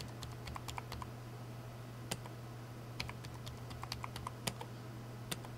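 Computer keyboard being typed on: faint, irregular key clicks over a low steady hum.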